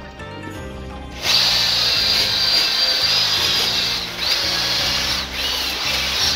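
Cordless drill spinning a wire cup brush against the metal of an old corkscrew-bottle opener, scrubbing its surface for restoration. A loud, steady, high-pitched grinding hiss starts about a second in and eases off briefly twice near the end.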